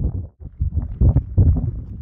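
Wind buffeting the microphone in loud, uneven gusts, dropping out briefly a moment after the start.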